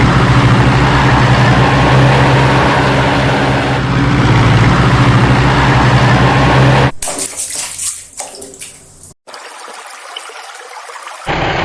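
Rushing water over a steady low hum, cutting off sharply about seven seconds in; quieter, uneven water noise follows, with a short break near the end.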